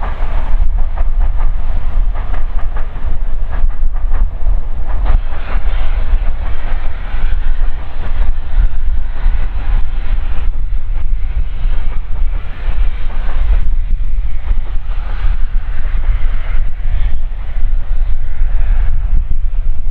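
Train running past on the line: a steady rumble and rolling hiss with scattered clicks of wheels on the rails.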